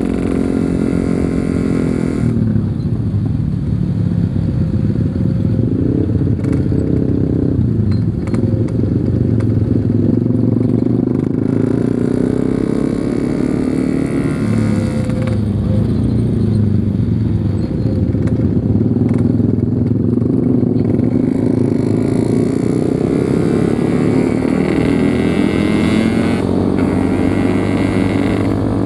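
Yamaha RX-King 135 two-stroke single-cylinder motorcycle engine running on the move. Its pitch falls over the first couple of seconds as it slows, then holds fairly steady with small rises and dips in revs.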